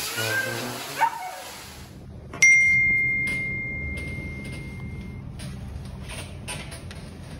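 A single bright bell-like ding with a clear held tone that fades out over about three seconds, over a low rustling. A few notes of background music end shortly before it.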